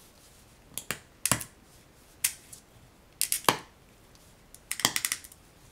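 Plastic box-jointed wall panels of a dice tower kit being pressed and snapped together by hand. There are about five clusters of sharp clicks and snaps, the loudest about a second and a half and three and a half seconds in.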